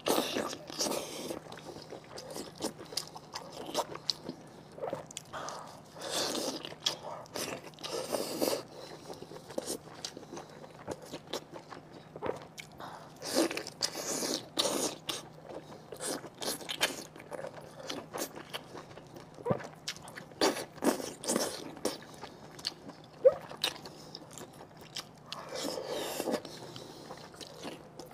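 Close-miked eating of braised pork intestine stuffed with pig brain: biting, sucking and chewing the soft, sauce-coated casing, with irregular wet smacks and a few longer sucking sounds.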